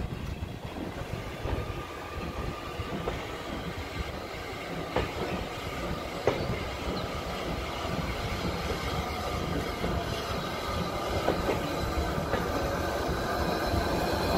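LNER B1 steam locomotive No. 1264 approaching on the adjacent track, the train sound growing louder toward the end, with a few sharp clicks of wheels over rail joints.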